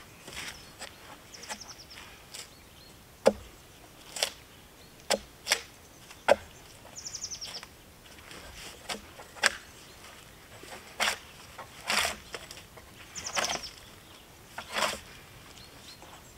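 Debarking tool striking and scraping bark off a robinia log in irregular strokes, about ten in all, mostly short sharp hits with a few longer scrapes near the end.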